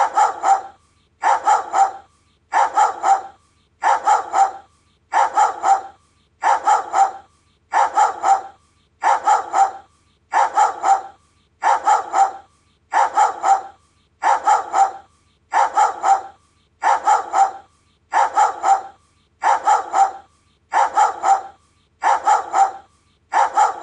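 Doberman barking in quick sets of about three barks, the sets repeating evenly about every 1.3 seconds like a looped recording.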